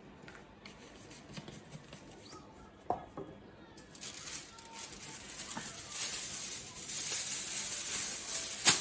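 Aluminium foil crackling and crinkling: scattered crisp clicks at first, turning into a dense, louder crackle from about halfway, with one sharp loud crack near the end.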